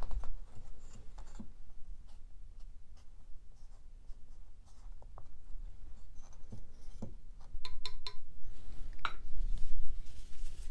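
Felt-tip marker writing on small wooden sample boards, a series of faint scratchy strokes, with light clicks and knocks as the boards are handled and a sharper knock near the end.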